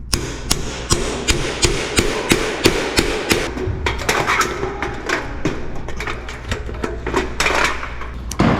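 A rapid series of sharp knocks, about three a second and evenly spaced at first, then less regular, with one heavier knock near the end, over a steady low hum.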